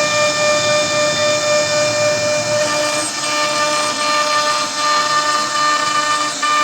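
CNC router spindle running with a steady high whine over a hiss of cutting noise as the bit carves wood.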